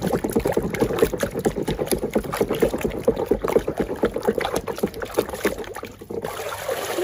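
Muddy plastic toy car being washed by hand in water: rapid, irregular splashing and scrubbing that dies down about six seconds in.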